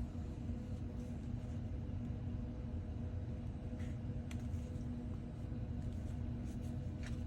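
Steady low electrical-sounding hum with a few faint, light clicks of small tools against the phone.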